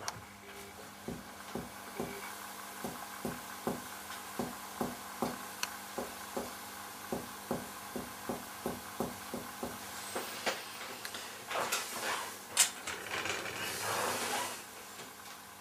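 Finger-on-finger percussion of a person's chest: steady taps about two a second, worked down the right midclavicular line from the resonant note over the lung toward the dulled note where the liver lies beneath, to find the height of the diaphragm. Near the end the tapping stops and gives way to a rustle of handling with one sharp tap.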